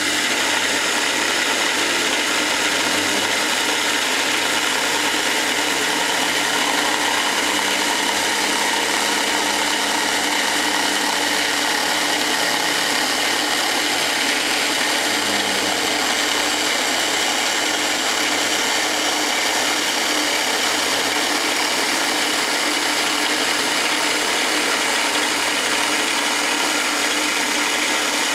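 Small CNC mill cutting a circle into metal plate with an end mill: the spindle runs steadily while the cutter works through the metal. Faint low tones rise and fall in pitch as the machine's axes trace the circle.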